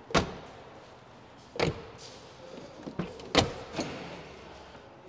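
Car doors being opened and shut: a handful of separate thumps and clunks, the loudest right at the start and about three and a half seconds in.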